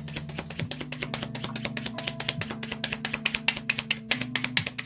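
Tarot deck being shuffled by hand: a quick, dense run of crisp card clicks, over soft background music with steady low held notes.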